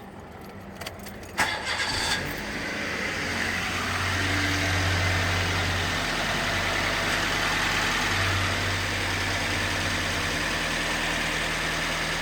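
A few small clicks, then a car engine is cranked and catches within about a second and settles into a steady idle.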